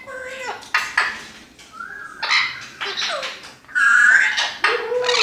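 Orange-winged Amazon parrots calling: a string of short squawks and whistled calls that glide up and down in pitch, the loudest about four seconds in, with sharp clicks between them.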